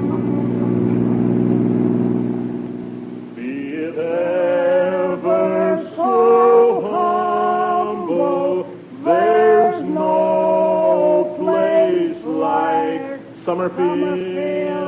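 A held orchestral chord, then from about three and a half seconds in, voices singing a song, a man's voice the most prominent.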